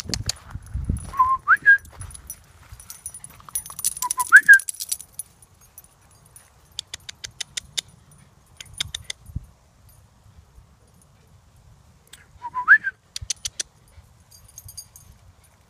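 A person whistling to call a dog: three short two-note whistles, each a low note sliding up to a higher one, about a second in, at about four seconds and near the end. Between them come a few quick runs of faint clicks.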